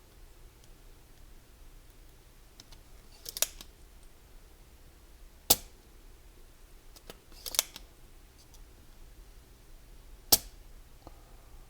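Spring-loaded solder sucker (desoldering pump) worked twice: each time a short rattly click as the plunger is pushed down and cocked, then about two seconds later a single sharp snap as it is fired to suck up solder.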